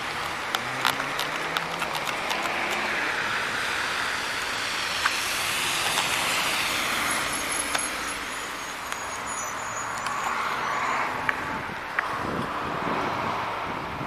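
Road traffic going by: cars passing on a wet, snowy road, their tyre noise swelling and fading slowly, with a faint engine hum early on and a few sharp clicks of handling noise.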